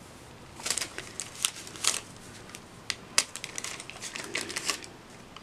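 Wax paper and a plastic sleeve protector crinkling and rustling in the hands as they are wrapped tightly around a candle, in scattered irregular crackles starting about a second in.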